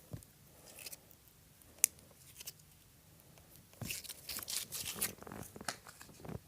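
Homemade slime being handled: scattered soft clicks and crackles, one sharp click about two seconds in, and a run of crackling and popping between about four and six seconds.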